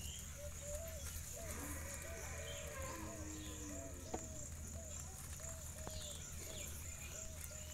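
A flock of domestic pigeons cooing: short, low, arched coos follow one another about twice a second and overlap, with a steady high hiss behind them.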